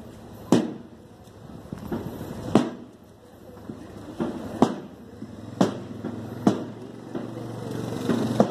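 A slow, regular beat of sharp knocks, about one every one to two seconds, over a low murmur of movement.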